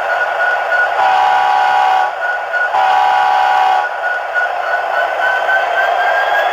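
Sound decoder of a Bachmann HO-scale SD70ACe model locomotive playing through its small onboard speaker: steady diesel engine sound with two long air-horn blasts, one about a second in and one about three seconds in. Near the end a tone starts rising as the locomotive begins to move.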